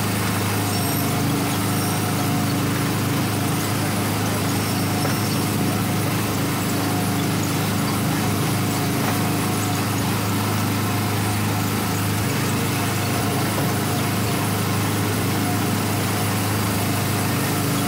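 Autopia ride car's small gasoline engine running steadily at a constant pace, heard from the seat.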